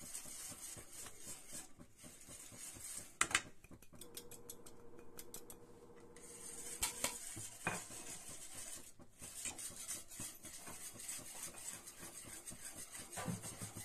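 Wire whisk scraping and rattling against the sides and bottom of a metal kadai while milk powder is whisked into hot milk, with one louder clank about three seconds in.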